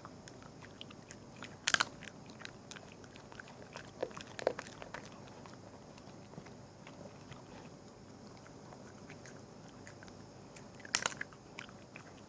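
A small pet gnawing and crunching food: scattered faint nibbling clicks, with a few louder crunches about two seconds in, around four and a half seconds, and near the end.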